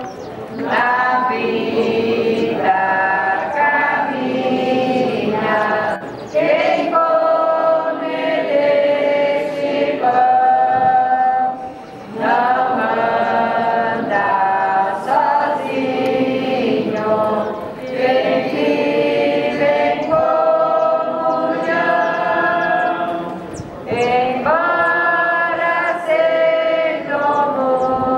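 A group of voices singing a religious hymn together, in sung phrases of a few seconds with short pauses between them.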